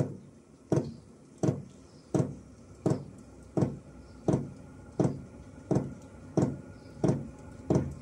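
Chinese diesel heater's fuel dosing pump ticking in an even rhythm, about one sharp click every 0.7 seconds, over a faint steady hum of the running heater. The pump is bolted to the heater case under a cover to quieten it, and it is still noisy, though not tinny.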